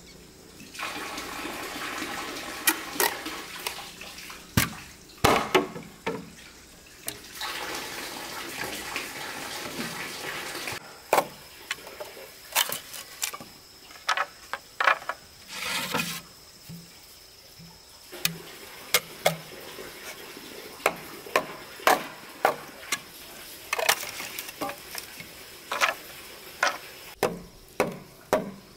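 Water running or being poured, in two spells of a few seconds each, followed by a long run of sharp, irregular knocks like wood or tools being struck.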